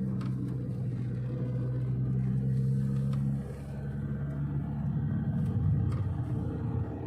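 A steady low engine hum, like a car's, that shifts in pitch a little past the halfway point.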